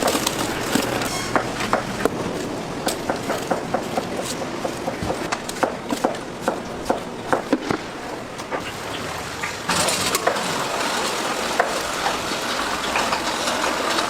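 Busy outdoor street ambience with many sharp clicks and knocks, like utensils and dishes clattering, over a steady background noise. About ten seconds in, a louder, brighter hiss joins.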